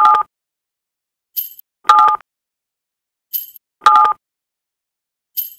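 A short electronic sound effect repeating about every two seconds: a brief high sparkle, then half a second later a louder blip of two steady tones.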